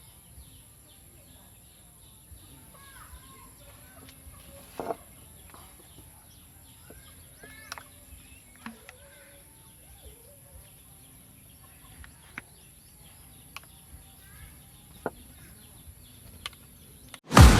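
Faint outdoor ambience with chickens and other birds calling on and off, and a few sharp clicks scattered through it. A loud ringing sound cuts in right at the very end.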